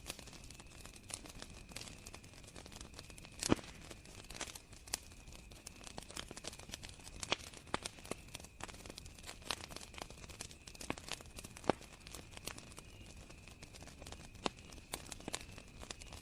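Wood campfire crackling with irregular sharp pops, the loudest about three and a half seconds in and near twelve seconds, over a steady high cricket trill.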